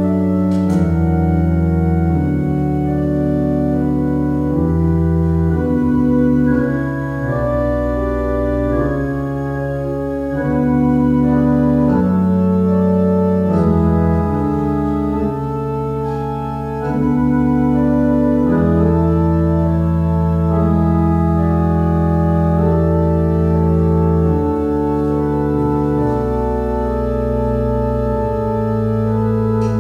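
Two-manual electronic church organ playing slow, sustained chords over deep bass notes, the chords changing every second or two, with short dips in loudness between phrases.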